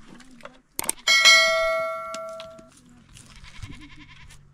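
A short mouse click, then a single bright bell ding that rings and fades over about a second and a half: the sound effect of a YouTube subscribe-button animation.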